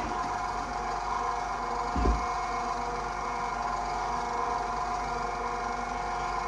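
Electric mixer motor running steadily, beating cake-like bread batter with the flour just added, with one low thump about two seconds in.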